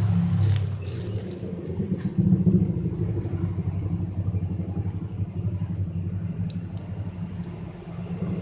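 A steady low engine rumble, running unevenly in level, with a few faint clicks over it.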